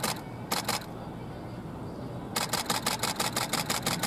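Camera shutter firing in continuous burst mode, about ten clicks a second: a short burst about half a second in, a pause, then a long unbroken burst from a little past two seconds.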